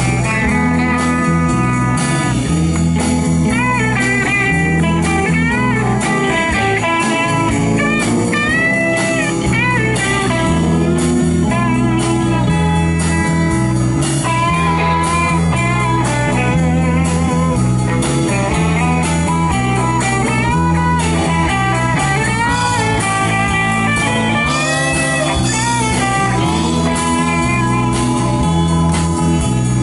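Live band playing a blues-rock instrumental passage, with no singing. A lead electric guitar bends notes over a stepping bass line and a steady beat.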